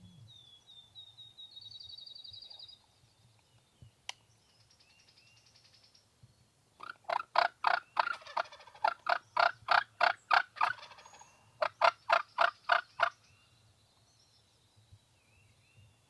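Wild turkey gobbling loudly at close range: two rapid rattling gobbles about halfway through, the first longer than the second. A small songbird trills faintly at the start.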